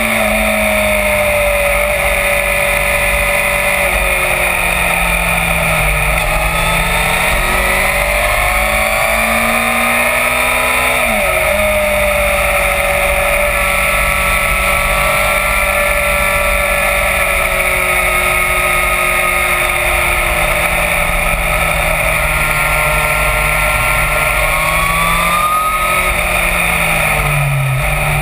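Yamaha FZ1's inline-four engine running at speed. Its note rises and falls with the throttle through the bends, with a quick dip and pickup about eleven seconds in. Heavy wind rush on the microphone runs underneath.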